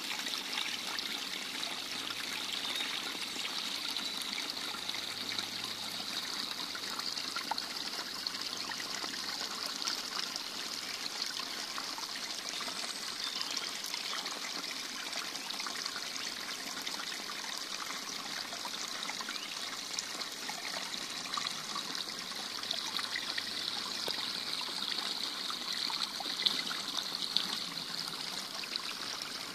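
Steady rushing sound of running water with scattered faint ticks, even throughout.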